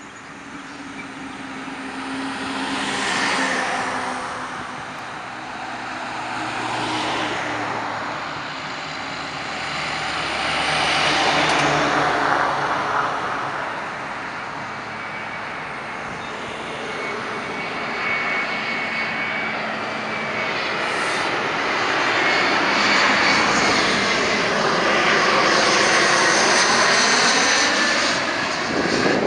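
Embraer airliner's turbofan engines on approach to land, a whine that builds from about halfway through to its loudest near the end as the jet descends closer. Road traffic, cars and a bus, passes by in the first half.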